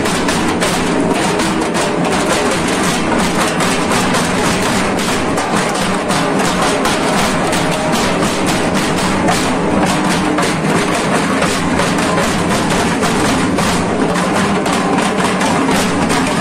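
Many dhaks, the Bengali two-headed barrel drums, beaten together with thin sticks in a fast, dense, unbroken rhythm.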